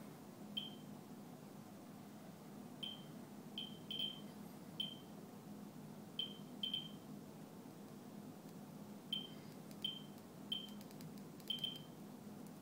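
Geiger counter with a Ludlum Model 44-9 pancake probe counting a rainwater sample, each detected count a short high beep. The beeps come at irregular, random intervals, singly and now and then in quick pairs, about a dozen in all.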